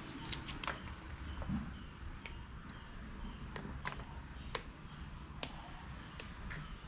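Small kitchen knife cutting through a bunch of spring onions held in the hand, each stroke a crisp click, coming irregularly, several close together at the start and then about one a second.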